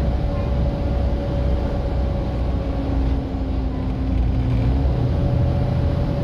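Volvo B7TL bus running, a steady low engine drone with the hoover-like whine over it. One whine fades out about halfway through and comes back near the end, while a lower whine holds for a couple of seconds in the middle.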